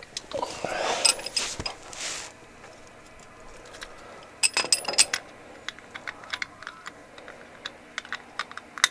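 Light metallic clicks, taps and scraping of a socket, extension and drain plug being worked against an ATV's crankcase while trying to start the plug's threads, with a quick run of clicks about halfway through.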